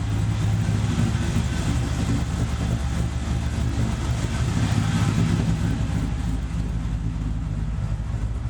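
LS1 V8 in a Chevy S10 running steadily, heard from inside the cab as an even low rumble. Any exhaust leak at the headers is faint, the leaks seemingly quelled by new Remflex header gaskets and a doubled copper collector gasket.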